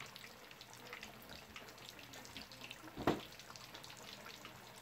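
Fish deep-frying in a pot of hot oil: a steady sizzle full of small crackles, with a single short thump about three seconds in.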